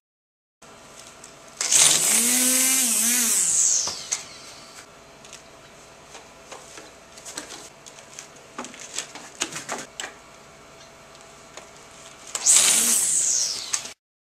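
Corded electric string trimmer motor whining with a high hiss for about two seconds, then winding down with falling pitch; it runs up and winds down again near the end. Scattered light clicks and knocks in between.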